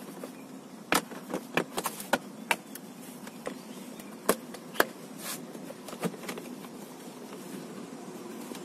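Hard plastic interior trim panel being handled and pressed back into its clips, giving a series of sharp clicks and knocks, loudest a little under five seconds in, over a steady faint hum.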